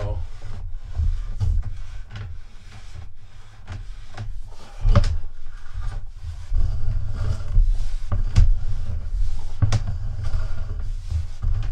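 Sewer inspection camera cable being pushed along a drain pipe: low rumbling and scraping handling noise, with a few sharp knocks about five, eight and ten seconds in.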